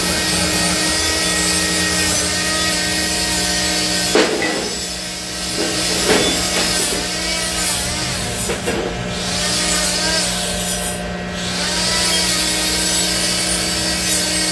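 Continuous abrasive power-tool noise, like sawing or grinding on metal, over a steady hum, easing briefly a few times.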